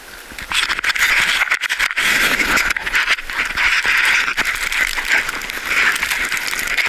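Pocket fabric rubbing and scraping against a camera's microphone: a loud, dense crackling rattle full of small clicks, starting about half a second in.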